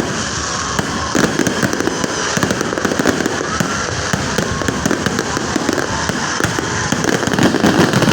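Fireworks going off in a dense, continuous barrage of crackles and pops.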